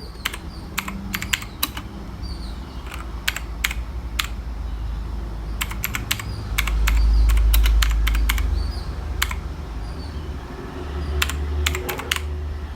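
Keys of a budget mechanical keyboard being pressed, sharp clicks coming in irregular clusters and single strokes. A low rumble swells for about two seconds midway.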